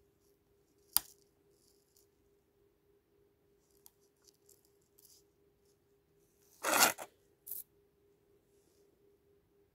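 Small handling sounds: a sharp tap about a second in, then a brief rustle and a second shorter one shortly after, near the end, over a faint steady hum.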